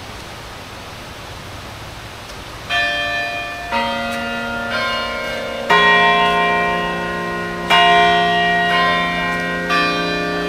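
Steady rush of falling water, then, a little under three seconds in, tower bells of a carillon begin to ring: one struck note about every second, each ringing on under the next.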